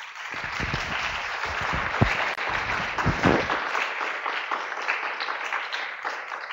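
Audience applauding: a dense round of clapping that starts at once and holds steady.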